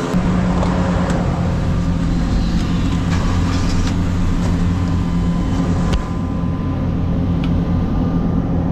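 Mini skid steer's engine running steadily at working speed, a constant low hum, with a slight drop in level about six seconds in.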